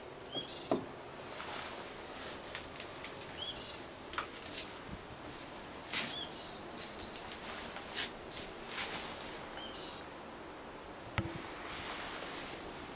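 A bird calls a short upward chirp every few seconds, with a brief rapid trill about six seconds in. There is a light knock under a second in as a stone is set down on a wooden shelf, then soft handling rustles and a sharp click near the end.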